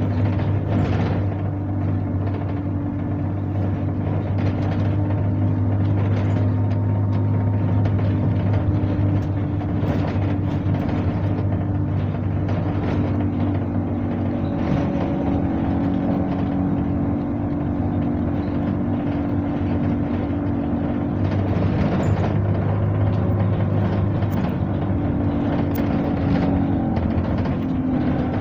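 Alexander Dennis Enviro 200 single-deck bus heard from a passenger seat while under way: a steady diesel engine drone with road noise, and occasional knocks and rattles from the ride.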